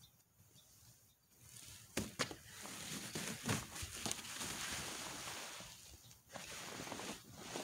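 Fabric car cover rustling and swishing as it is dragged off a car. It starts about two seconds in with two sharp clicks, and the rustling eases briefly near six seconds.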